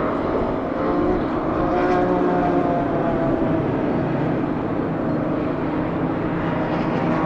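Classic racing car engines running hard on track, with a steady, loud engine note whose pitch shifts a little up and down as they go.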